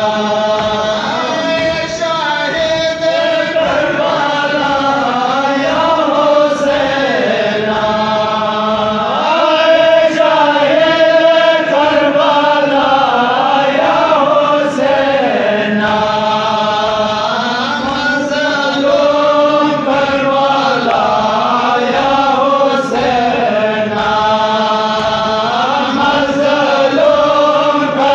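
A group of men chanting a Muharram noha (lament) in unison, with steady rhythmic chest-beating (matam) thuds beneath the melody.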